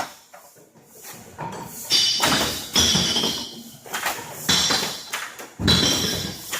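Empty drink containers clattering down a sorting chute into bins: four sudden crashes, each with a ringing, rattling tail, in a large hall.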